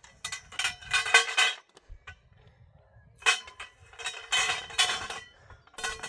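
Metallic clattering and clinking in about five bursts, the longest near the start and another around the middle, with a faint ringing in each.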